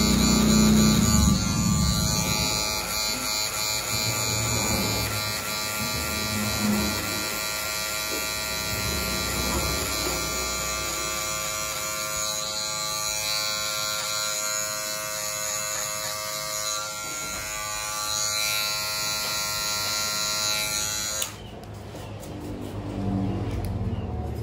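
Electric hair clipper running steadily, then switched off suddenly near the end.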